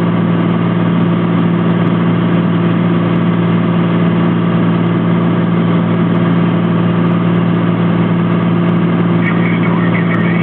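Cessna T182T Turbo Skylane's turbocharged six-cylinder engine and propeller giving a loud, steady drone at constant power. A brief faint voice comes in near the end.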